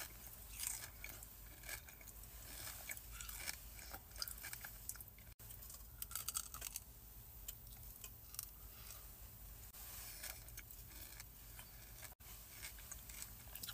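Close-up biting and chewing of a Dubai chocolate bar, milk chocolate filled with pistachio cream and crisp kataifi pastry, heard as faint, scattered crunches and crackles with a busier run of crunching about six seconds in.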